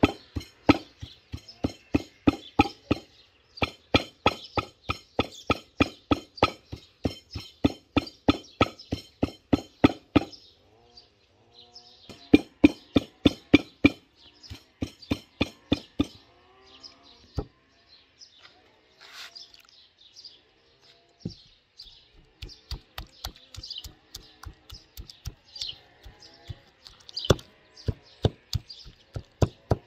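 A round stone pounding crushed walnuts in a wooden bowl: steady knocks about three a second, breaking off for a couple of seconds around a third of the way in and again for several seconds mid-way, with small birds chirping.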